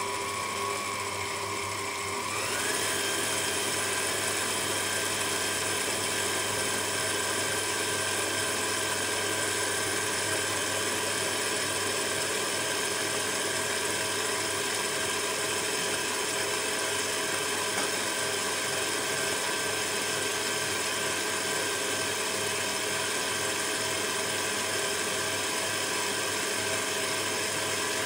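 Electric stand mixer running steadily, its motor whining as the beater creams cake batter of margarine, sugar and egg. About two and a half seconds in the whine steps up in pitch and gets louder, then holds steady.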